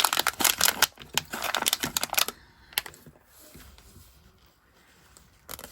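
Rapid crackly clicking and rustling from a small plastic container or its packaging being handled, lasting about two seconds. Then it goes quiet, apart from a single click about three seconds in and another near the end.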